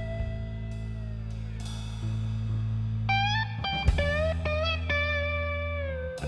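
Background music: an electric guitar playing long held notes that bend up and down in pitch, over a steady bass, with a sharp drum hit about four seconds in.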